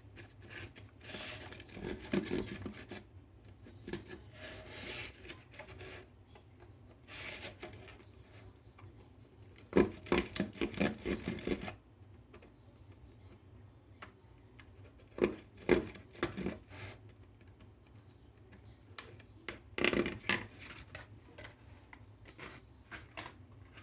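Plastic container bottom being handled and cut: irregular bouts of scraping, rubbing and clicking, with the densest run of clicks about ten seconds in.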